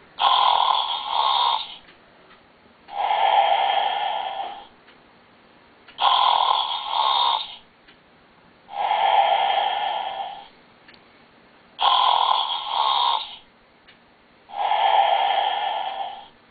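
Toy sheep's recorded snoring played through its small built-in speaker: three snore cycles about six seconds apart, each two breaths of about a second and a half, the second slightly longer, with short quiet gaps between.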